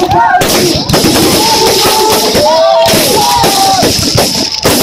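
Voices in long gliding calls over a dense crackle.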